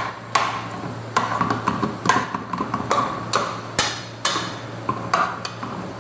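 A stirring spoon knocking and scraping against the side of a metal pot as shrimp and tuna are mixed, with sharp irregular clacks about once a second.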